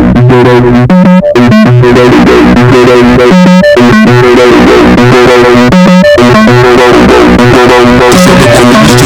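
Loud background music: an instrumental stretch of a song, with repeated pitched notes over a steady beat.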